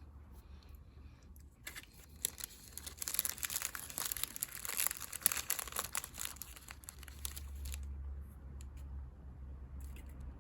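Packaging being handled and opened, crinkling and tearing in a dense run of crackles for several seconds before it dies down to a few scattered rustles.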